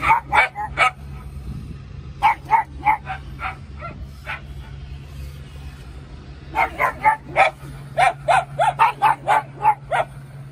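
Pug barking in clusters of quick, sharp barks with pauses between them; the longest, fastest run comes in the second half.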